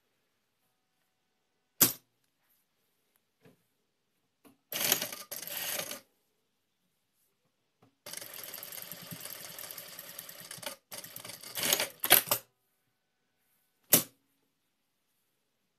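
Industrial single-needle lockstitch sewing machine stitching in short runs: a brief burst, then a longer steady run of a few seconds, with single sharp mechanical clicks before and after.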